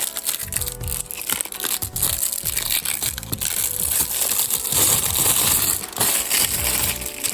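Packaging being handled and opened, crinkling and crackling loudly and almost without a break, densest in the middle and second half, over background music.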